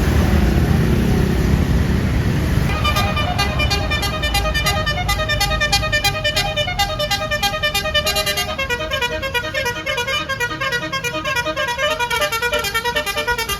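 Bus's multi-note basuri air horn playing a fast telolet melody of short, quickly stepping notes, starting about three seconds in after a low rumble.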